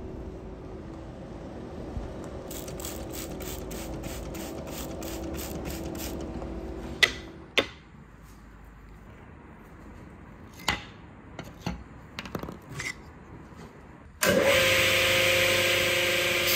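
A disc sander starts up about fourteen seconds in and runs loud and steady, with a workpiece held against the spinning disc. Before it there is a low steady workshop hum with a faint rapid ticking, then a few sharp knocks.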